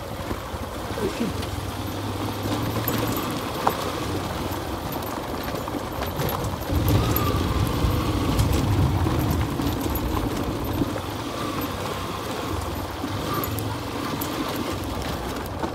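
Motorcycle engine running at low speed over a rough gravel track, with a steady low rumble that grows louder about seven seconds in.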